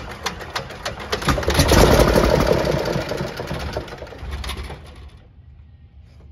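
Continental IO-520-BB flat-six aircraft engine being turned over on its starter, with a regular clicking at about three beats a second. The sound swells louder and denser, then winds down and stops about five seconds in, without the engine catching.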